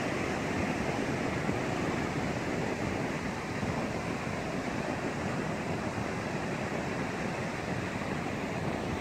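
Surf breaking along a beach: a steady, even rush of noise.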